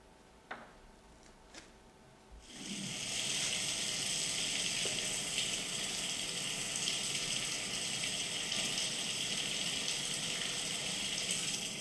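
A few faint clicks, then about two and a half seconds in a steady hissing rush of noise sets in and holds.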